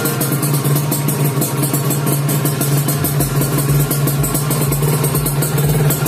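Kawasaki Ninja RR's single-cylinder two-stroke engine running, under background music whose low beat comes in about halfway through.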